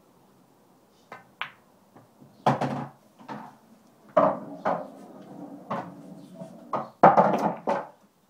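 A pool cue clicks against the cue ball about a second in, followed by a string of irregular knocks and thuds around the pool table, the loudest a few seconds in and a cluster near the end.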